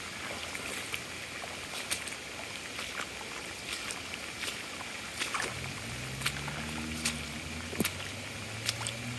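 Floodwater rushing across a yard in a shallow stream, a steady rushing hiss with scattered sharp clicks and splashes. About halfway through, a low steady hum like a distant engine comes in and keeps going.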